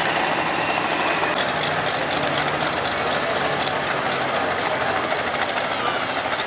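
John Deere farm tractor's diesel engine running hard under full load while pulling a weight-transfer sled, a loud steady sound with a faint rattle running through it.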